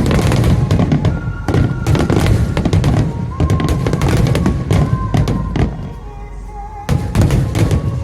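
A large aerial fireworks display firing rapid volleys of bursts and crackles, with music playing underneath. The bursts thin out for about a second near the end, then come back thick.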